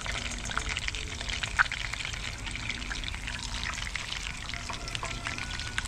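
Hot oil sizzling and crackling around a whole snapper shallow-frying in a pan, with one louder pop about a second and a half in.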